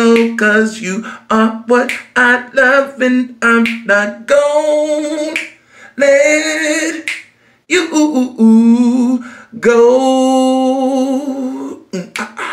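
A single voice singing unaccompanied, with quick short phrases at first, then long held notes from about four seconds in, and short clicks between the phrases.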